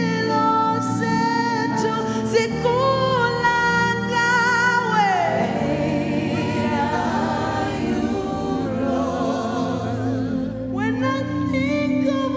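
Gospel worship music: a group of voices sings long held, wordless notes with vibrato, and one note glides down about five seconds in.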